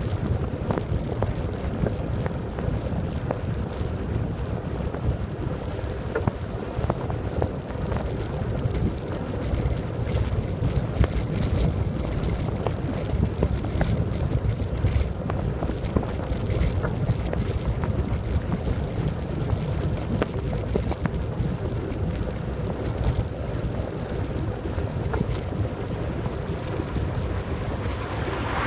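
Wind buffeting the microphone and tyre rolling noise from a faired recumbent bicycle riding at about 35 km/h on rough asphalt, with frequent small knocks and rattles. Just before the end an oncoming van passes.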